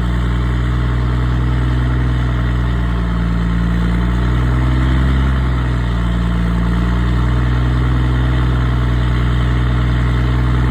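Ford Cargo 1722 truck's diesel engine idling with a steady deep rumble through a straight-pipe exhaust ("diretão"), with a comb fitted in the turbo intake. The revs swell slightly about halfway through and then settle back.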